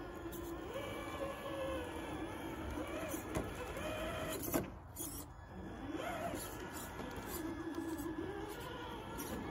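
Traxxas TRX-6 6x6 RC crawler's electric motor and gear drivetrain whining as it crawls over rocks, the pitch rising and falling with the throttle. A sharp knock comes about four and a half seconds in.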